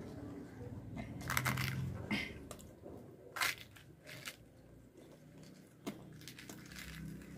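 Fried puri being torn apart by hand over a steel plate: a handful of short, crisp tearing and crackling sounds.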